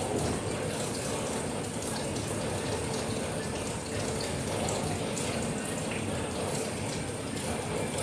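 Rain falling steadily: a continuous even hiss of water with scattered small ticks of drops.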